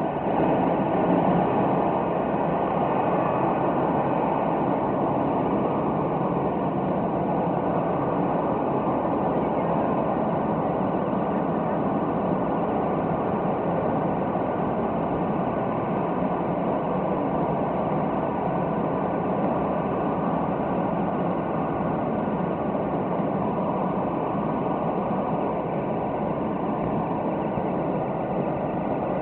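Steady turbine noise from a parked Boeing 737-800 jet airliner: a continuous, even rush with a faint whine above it.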